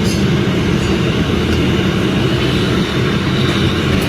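Loud, steady low rumble of running machinery, dropping somewhat right at the end.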